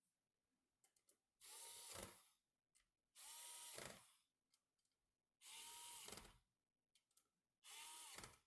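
Small electric screwdriver running in four short bursts, each just under a second, with a steady motor whine, driving screws during a PC assembly.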